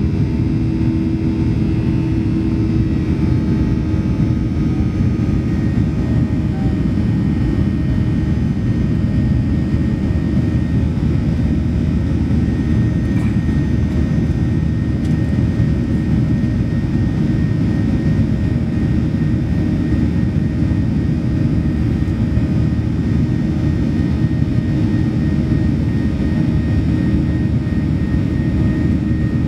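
Steady roar of a Boeing 737-800's CFM56-7B jet engines and the rushing air, heard inside the passenger cabin during the climb after takeoff. A faint high whine holds steady over the low roar from about six seconds in.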